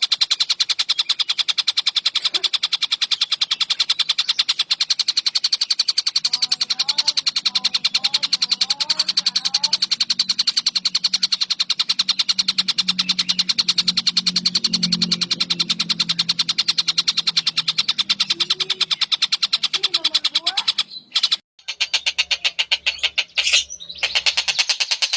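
Eurasian tree sparrows chirping in a fast, unbroken chatter, the agitated calling of fighting sparrows. A low hum sits underneath through the middle, and the chatter breaks off for a moment near the end before going on.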